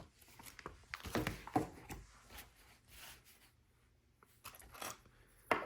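Light rustling and scattered small clicks of LEGO pieces and the paper instruction booklet being handled, with a sharper click near the end.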